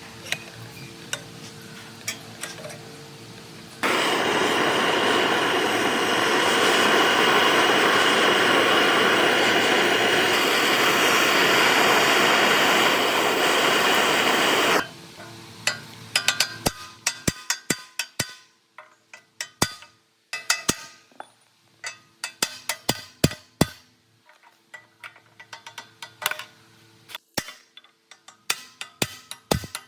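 Workshop tool noise during a fan restoration. A loud, steady rushing noise runs for about eleven seconds and then cuts off suddenly, followed by many quick, irregular metallic taps and knocks, like parts being tapped and handled, over a faint hum.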